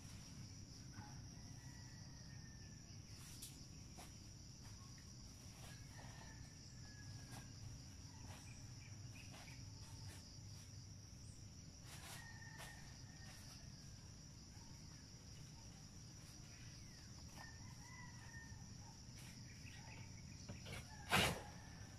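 Rural outdoor ambience: a steady high insect drone, with distant roosters crowing faintly a few times. A loud short knock near the end.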